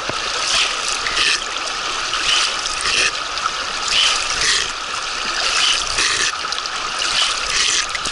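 A hand scooping and splashing in a fast, shallow mountain river, a splash about once a second, over the steady rush of the current.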